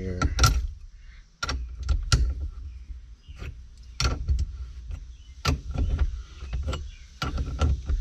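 Wrench cranking down the center bolt of a steering wheel puller: metal clicks and clanks in uneven bursts, each with a low thud through the steering column, as the press-fit wheel is forced off its shaft.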